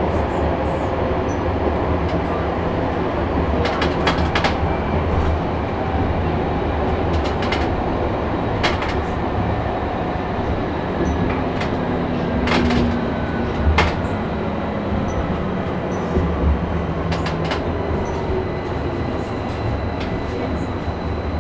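Nockebybanan light-rail train running, heard from on board: a steady low rumble with scattered sharp clicks and knocks, and a faint whine that slowly falls in pitch.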